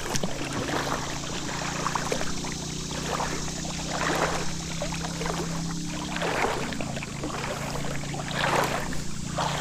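Creek water sloshing and splashing as someone wades through a shallow creek, in swells every couple of seconds, over a steady low hum.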